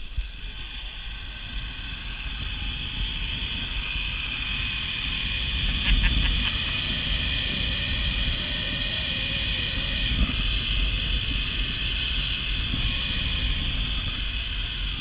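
Zip-line trolley pulleys running fast along the steel cable: a steady high whine of several tones that builds over the first few seconds and then holds, with wind rushing over the microphone underneath.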